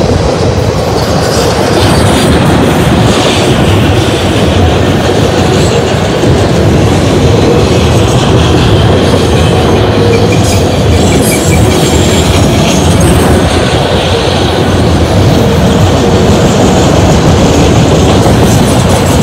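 Autorack freight cars rolling past at close range: a loud, steady rumble and clatter of steel wheels on the rails.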